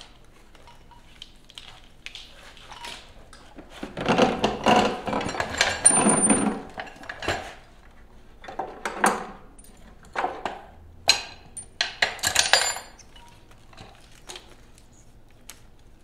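An engine wiring harness being handled and pushed into place against a bare engine and transmission: about four seconds in, a few seconds of rustling and scraping, then a string of clinks and knocks, a couple with a short metallic ring.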